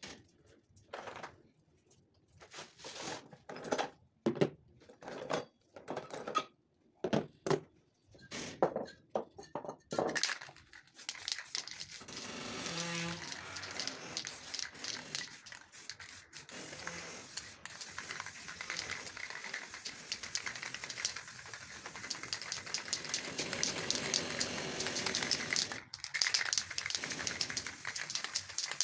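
An aerosol spray-paint can hissing in long sprays as black paint goes on, starting about ten seconds in, with a short break near the end. Before it comes a run of short knocks and scrapes.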